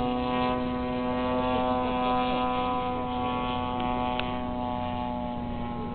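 Steady droning hum of an airplane's engines passing high overhead, one even pitched tone with overtones that holds without change. A short click about four seconds in.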